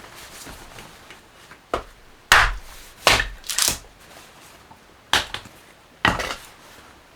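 Wood being chopped and split: about six irregular, sharp strokes, several with a splintering crack.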